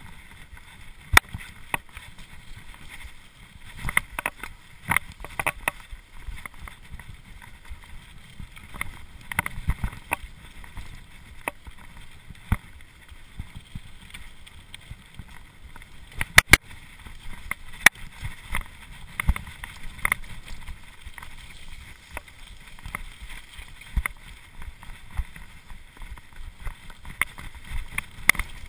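Cube LTD Pro mountain bike descending a rough dirt singletrack at speed, heard through a GoPro housing: a steady rumble of tyres and rushing air with frequent sharp rattles and knocks from the bike over bumps, loudest as a double knock about sixteen seconds in.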